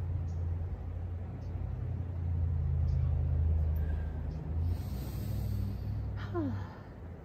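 A steady, low, engine-like rumble that fades away near the end, with a short falling squeal just before it dies out.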